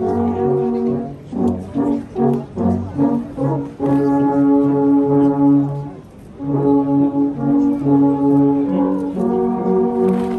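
Alphorns playing a slow tune in several parts: long held notes with quicker notes between, and a short break about six seconds in. This is traditional accompaniment for Swiss flag throwing.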